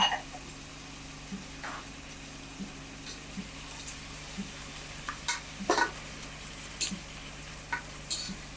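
Onions and green chillies frying in oil in a pot, a steady low sizzle. Scattered clicks and scrapes come from a ladle stirring against the pot, the loudest about halfway through.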